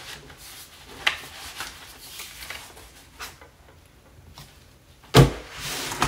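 Cardboard packaging being handled, with a few light knocks and rustles, then one loud thump about five seconds in as the cardboard lid-holder insert is set down.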